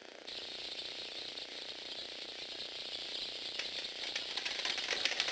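Small electric motor and plastic gears of a Lego Technic remote-controlled eight-legged walking robot, starting up a moment in with a steady whir, with a rattle of clicking legs that grows more frequent near the end.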